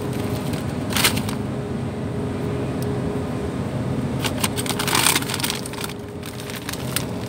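Crinkling of a plastic frozen-food bag being handled, briefly about a second in and again for about a second near five seconds, over a steady low background hum.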